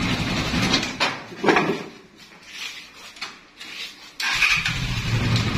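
Cargo ATV's 400cc engine running steadily. Its hum drops away about a second in, leaving a few knocks and clatters, then the engine sound returns abruptly about four seconds in and runs on steadily.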